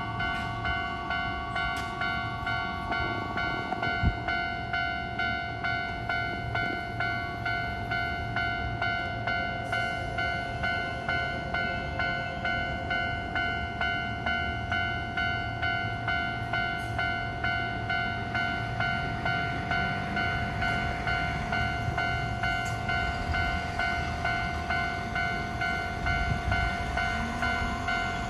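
Japanese railroad crossing warning bell ringing in an even rhythm, a little under two strikes a second, over the low rumble of a Keio Line electric train, which grows louder near the end as the train comes through.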